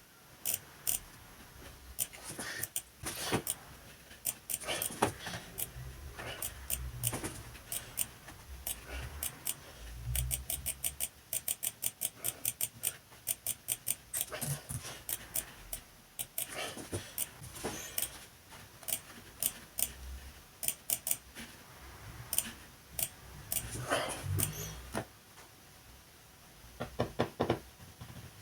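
Hand work on a laptop: scattered small plastic and metal clicks and taps, with low bumps of parts being set down and a run of rapid ticking about midway.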